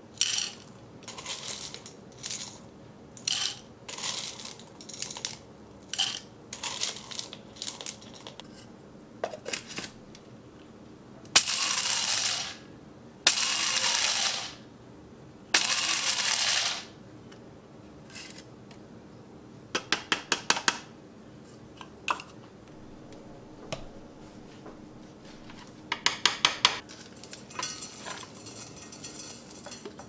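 Coffee beans clattering into a small electric blade coffee grinder, then the grinder run in three short pulses of about a second and a half each. Two quick runs of light taps follow near the end.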